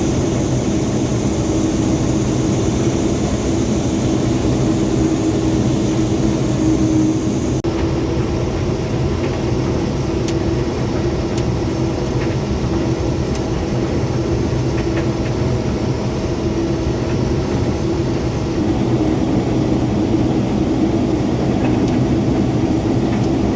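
Large diesel engine running steadily under load, with a constant drone. A high hiss that sits over it drops away about eight seconds in.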